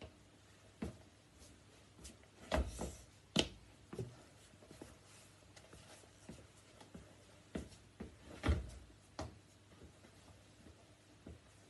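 Sneakers stepping and stomping on a tiled floor during footwork: about a dozen irregular thuds and scuffs, the loudest about two and a half, three and a half, and eight and a half seconds in.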